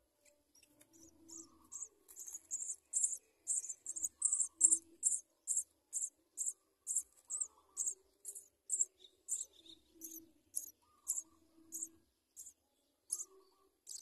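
Nestling birds begging: a quick, even run of short, very high, thin cheeps, about two or three a second. The cheeps start about a second in and are loudest a few seconds later.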